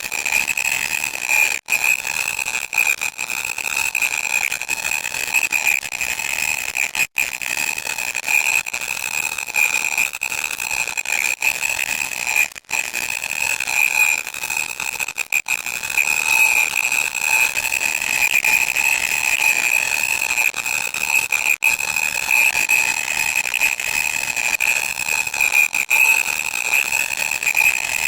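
Loud, harsh electronic noise: a steady shrill tone over a static hiss. It cuts out for an instant a few times.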